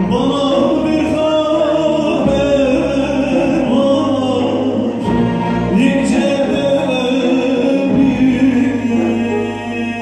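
Live Turkish folk song (türkü) sung over an ensemble of bağlamas (long-necked saz lutes) and other folk instruments, the voices carrying a slow, bending melody.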